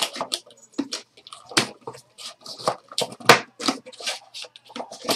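Hands handling trading cards, packs and plastic card holders: an irregular run of quick clicks, taps and rustles.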